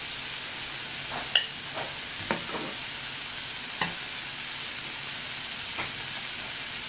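Food sizzling on the grill plate of an electric hot pot, a steady hiss with the broth at a boil. A few sharp clicks of tongs against a ceramic bowl, the loudest about a second and a half in.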